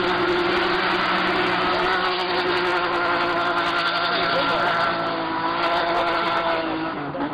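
Drift car's engine held high in the revs at a fairly steady pitch while the car slides sideways with its rear tyres spinning and smoking; the note dips briefly near the end.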